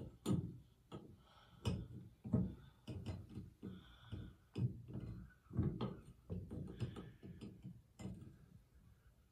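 Clear acrylic handle of a Delta single-handle shower faucet being turned and worked on its cartridge stem against the chrome trim plate: irregular plastic clicks and knocks.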